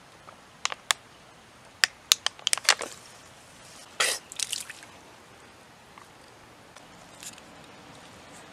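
A plastic water bottle crackling with a run of sharp clicks as it is gripped and drunk from, then, about four seconds in, a short spray of water spat out of the mouth.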